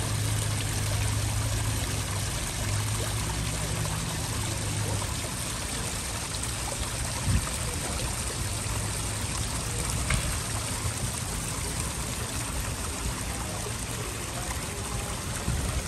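Water trickling and splashing steadily over stacked stone slabs in a small garden water feature.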